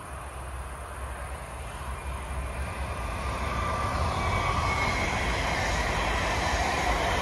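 Blue Go-Ahead Bayern electric multiple unit approaching and passing at speed. Its rushing wheel-and-rail noise grows louder over the first four seconds, then holds, with a high whine running over it.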